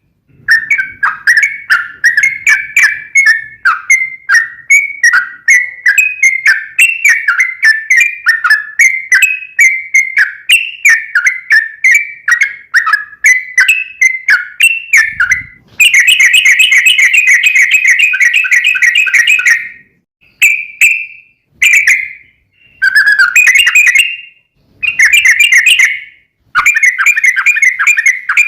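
Yellow-vented bulbul (trucukan) singing a long run of quick chirps. From about halfway it speeds into a louder rolling trill, the long "ropel" song, then breaks into short bursts with brief gaps.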